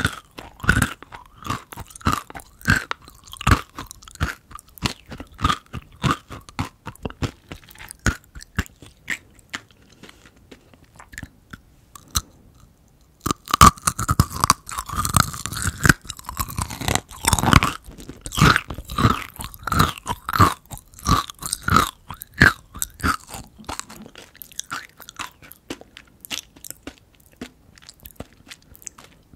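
Close-miked chewing of kohakutou, Japanese crystallized jelly candy, its dry sugar crust crunching between the teeth in quick, irregular bites. After a short pause about twelve seconds in, the crunching starts up louder again and thins out toward the end.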